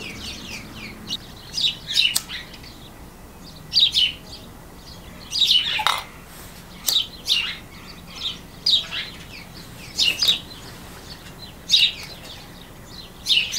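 Wild birds calling: short, sharp chirps that slide down in pitch, often in quick pairs, coming every second or two.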